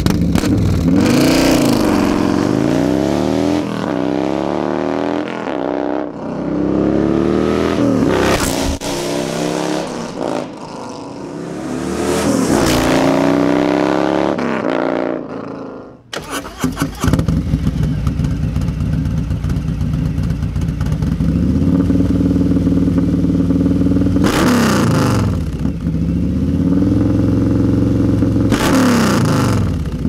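Harley-Davidson Milwaukee-Eight V-twin, bored out to 128 cubic inches with a 492 cam, running through D&D Big Bore exhaust. First it accelerates hard away through several gears, the pitch climbing and dropping back at each shift. Then it idles at a standstill and is revved briefly twice near the end.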